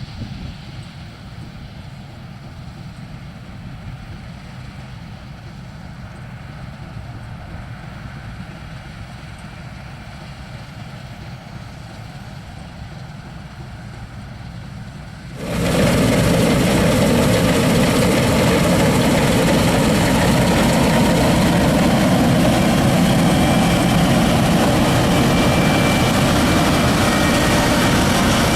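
New Holland TC56 combine harvester running steadily while harvesting rice, its engine and threshing machinery giving a low, even rumble. About halfway through the sound jumps suddenly to a much louder, fuller machinery noise that holds steady.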